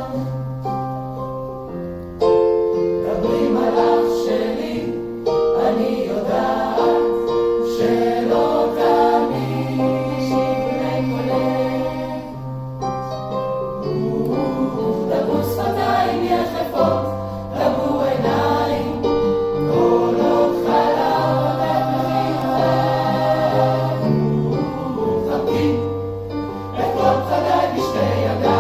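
A choir singing a slow song in several parts: long held chords, with a low bass line moving beneath the upper voices.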